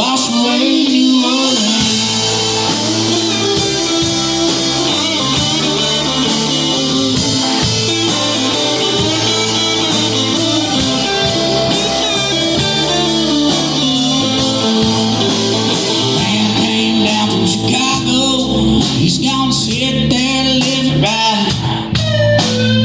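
Live band music: an instrumental passage of a song, with guitar prominent.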